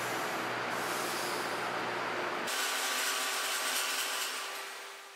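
Steady hissing shop noise with a faint low hum; about halfway in it cuts to a vertical band saw running steadily as flat steel pieces are fed to the blade, fading out near the end.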